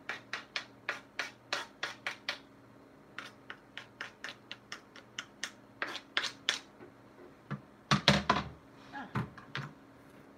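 Chopped broccoli and onion being scraped and tapped off the edge of a plastic cutting board, giving a quick run of sharp clicks about three a second. About eight seconds in come a few heavier knocks.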